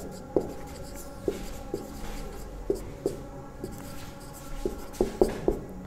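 Marker pen writing on a whiteboard: irregular short taps and strokes as letters are drawn, with a quicker run of them near the end.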